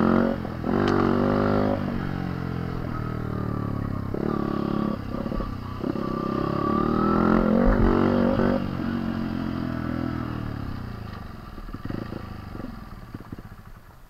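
Dirt bike engine under way on a trail, revving up and down as the throttle opens and closes. Near the end it eases off and fades as the bike slows.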